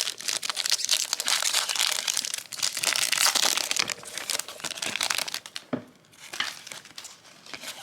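Foil booster pack wrapper crinkling as it is handled and opened, a dense run of crackles that thins out about six seconds in.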